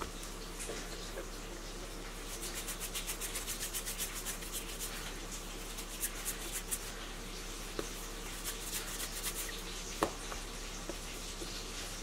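Hands rolling a piece of bread dough back and forth on a floured work surface: quick, even rubbing strokes, stronger in the middle and again near the end, with one sharp tap about ten seconds in. A steady low hum underneath.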